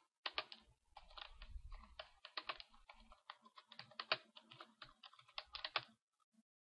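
Typing on a computer keyboard: a quick, uneven run of keystrokes that stops near the end.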